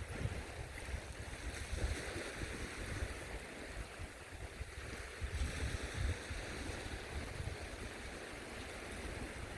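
Wind buffeting the microphone in gusts over a steady wash of sea surf on a sandy beach.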